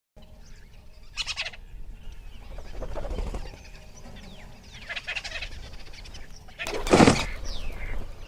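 Birds calling over a light outdoor ambience: a series of separate short calls with a few falling whistles, the loudest call about seven seconds in.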